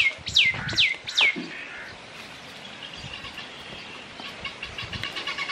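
A bird calling: four loud, sharply falling whistled notes in about a second and a half, followed by faint, rapid high chirping.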